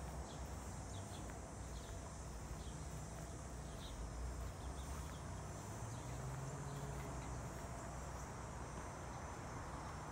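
A steady, high-pitched insect chorus buzzing without a break, with short scattered chirps over it and a low rumble underneath.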